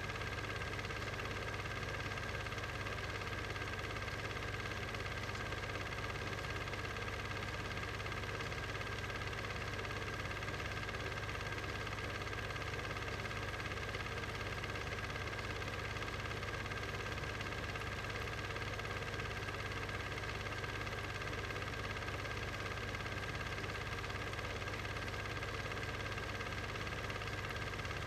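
A steady, unchanging hum with hiss, with no distinct events.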